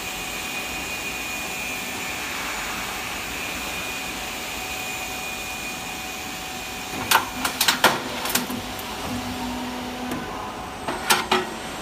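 K-style gutter roll forming machine running, a steady whirr with a thin high whine, as the formed gutter feeds out. Several sharp metal clanks come about seven to eight seconds in, and a couple more near the end.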